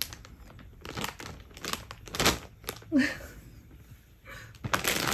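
Clear plastic bag around a plush toy crinkling in irregular bursts as it is handled, louder near the end, with a short voice sound about three seconds in.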